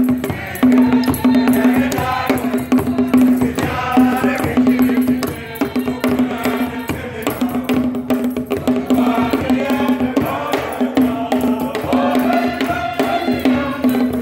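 Church choir singing in rhythm, with percussion and a held low note beneath the voices.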